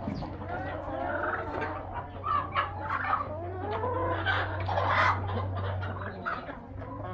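Chickens clucking, with many short calls overlapping.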